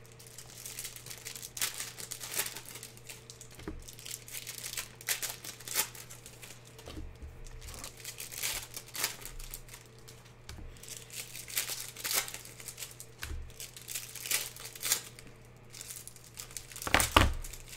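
Trading cards and their packaging being handled at a table: irregular crinkling and rustling with light clicks, over a faint steady electrical hum.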